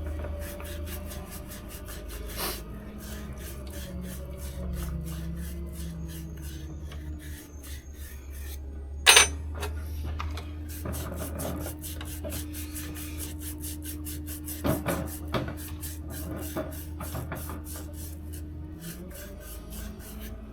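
Copper pipe stubs being scrubbed clean with an abrasive, in rapid, rhythmic rasping strokes, to prepare them for soldering. A single sharp knock about nine seconds in.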